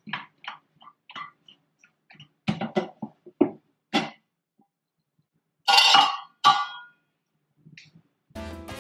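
Cookware being handled: a run of light clicks and knocks as a cloth is wrapped around a lidded pot to seal it for steaming, then two louder clatters about six seconds in. Background music comes in near the end.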